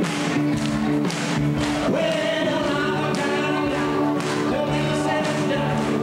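Amplified music with a man singing into a handheld microphone over a steady beat and sustained instrumental chords.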